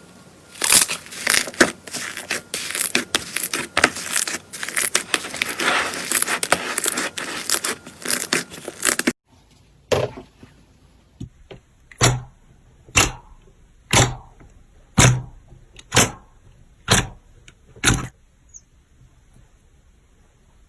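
Slime being worked by hand, first a dense run of crackling and popping, then after a sudden cut about nine slow presses roughly once a second, some with a low thud.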